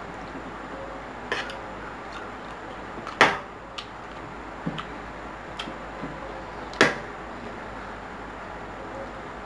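A metal spoon clinking against a plate of rice while eating, in three sharp clinks (about a second in, a little past three seconds, the loudest, and near seven seconds) with lighter taps between.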